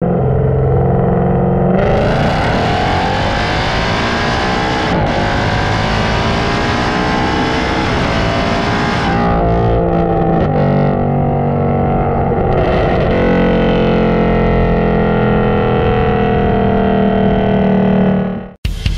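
Exhaust of a 2019 Ford Mustang GT's 5.0 V8 under way: the engine note climbs steadily under acceleration, drops suddenly with a shift or lift about nine seconds in, then climbs again and holds. It cuts off abruptly near the end.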